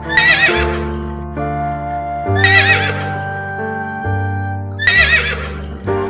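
Horse whinnying three times, about two and a half seconds apart, each a short call with a quickly wavering pitch, over steady background music.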